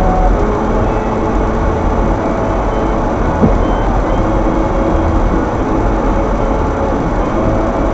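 Steady road and engine noise inside a moving car, heard through a dashcam's microphone, with a brief click about three and a half seconds in.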